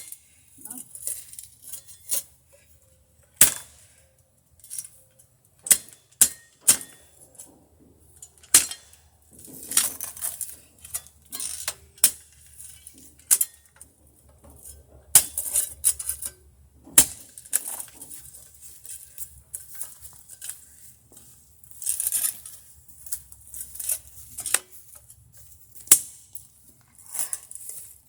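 A metal hand digging tool striking and scraping through stony soil while a footer hole is dug by hand: irregular sharp clinks and gritty scrapes, often about a second apart.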